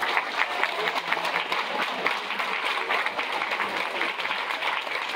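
Audience applauding: many hands clapping at once, a dense, steady patter.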